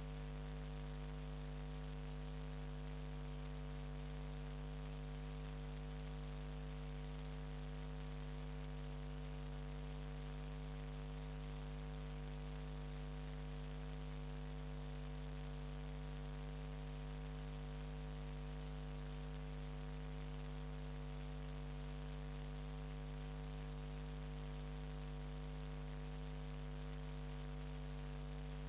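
Steady electrical mains hum with a hiss, a low unchanging buzz that does not rise or fall, typical of a camera's audio line picking up interference. The passing narrowboat is not heard.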